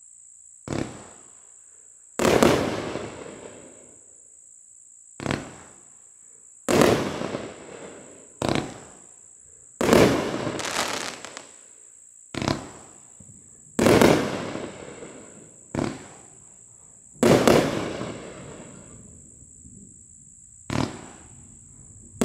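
Raccoon Fireworks 'Lion Threat' consumer cake firing its shots one at a time. Each shot is a short launch thump, followed about a second and a half later by a louder bursting report that echoes away, with about six shots every three to four seconds.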